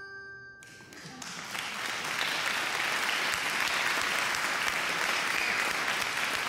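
The last notes of a chiming tune ring out, then applause swells in about a second in and keeps going steadily.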